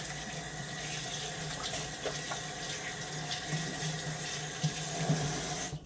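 Sink tap running with hands being rinsed under the stream, then the water shut off abruptly near the end.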